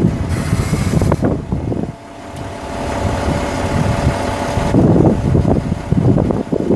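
Caterpillar 3306 inline-six turbo diesel of a Kenworth W900B mixer truck running with a low, uneven rumble. A brief hiss comes about half a second in, and a steady whine sits over the engine in the middle.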